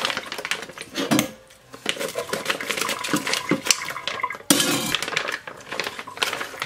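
Frozen pompano in plastic bags being handled and shifted in a stainless-steel sink: irregular knocks and clatter of the hard frozen fish against the metal, with plastic wrapping crinkling, loudest in a burst of rustling about four and a half seconds in.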